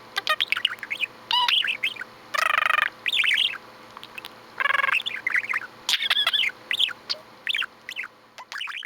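Pet budgerigar chattering: a quick string of short chirps and warbling notes, with two longer, harsher buzzy calls about two and a half and four and a half seconds in.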